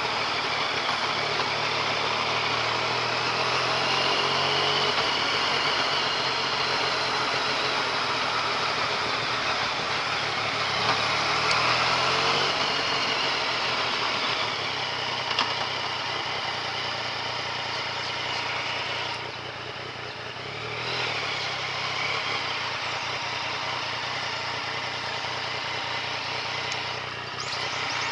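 Yamaha MT-09 Tracer's inline-three engine running as the bike is ridden at low speed, mixed with steady wind and road rush. The engine note shifts with the throttle and eases off briefly about two-thirds of the way through.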